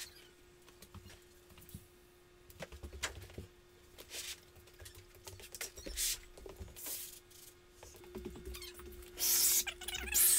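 A large sheet of Formica laminate being handled on a countertop: irregular scraping, sliding and flexing rustles, with a longer, louder scrape about nine seconds in.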